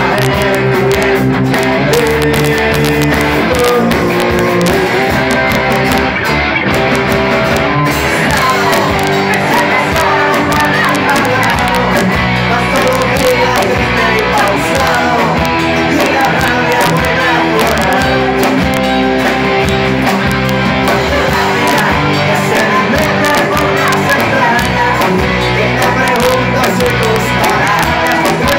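Live rumba-rock band playing loudly: strummed acoustic guitar, electric bass and drums, with a male and a female voice singing.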